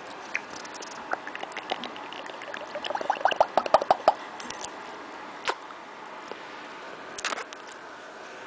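African grey parrot clicking close to the microphone: scattered single clicks, with a quick run of about a dozen sharper clicks around the middle.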